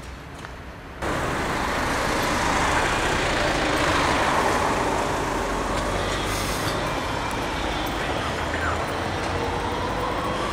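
Street traffic noise that comes in suddenly about a second in and stays loud and steady, with a siren's wavering tone rising near the end.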